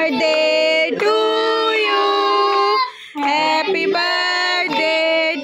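Singing: a melody of long held notes, with a short break about three seconds in.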